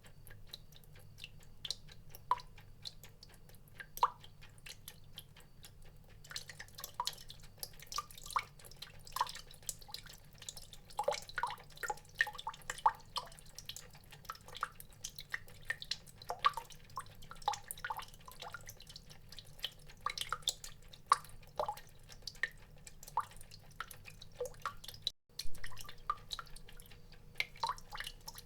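Water drops falling in an irregular patter, each a short plink. The drops are sparse at first and come thicker about six seconds in, with a momentary break near the end.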